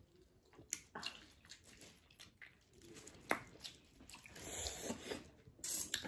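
Wet mouth sounds of someone eating saucy chicken wings close to the microphone: scattered smacks and clicks, a sharper one about three seconds in, and a denser breathy rush toward the end.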